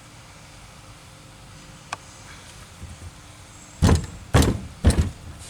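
A faint click, then three loud sharp knocks about half a second apart, from hand work on an engine's fuel injection pump.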